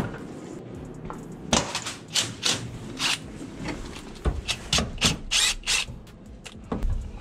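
Hand tools clinking and knocking on the top loader transmission's shifter mechanism under a truck's floor as it is being unbolted: a string of irregular sharp clicks and knocks, thickest in the middle.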